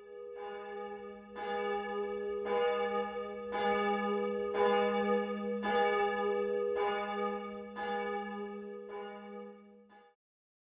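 The Paul Schneider bell of the Kirchliche Hochschule Wuppertal tower ringing alone as a church bell, its clapper striking about once a second, nine strokes over a steady hum, until the sound cuts off suddenly near the end.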